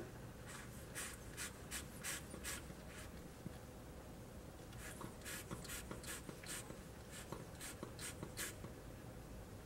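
Faint scratching strokes, about three or four a second, in two runs with a pause of about two seconds between them.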